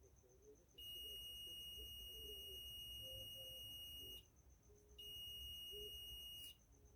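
Digital multimeter's continuity buzzer beeping twice: a steady high beep of about three and a half seconds, then a shorter one of about a second and a half. The beep signals continuity, meaning the cable conductor under test is unbroken.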